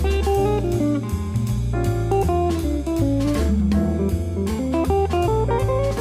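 Background music: a plucked guitar melody over a bass line and a steady beat.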